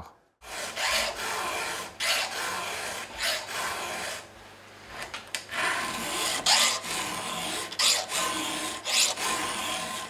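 Round chainsaw file being stroked across the cutters of a saw chain, sharpening it: about eight filing strokes, roughly one a second, with a short pause near the middle.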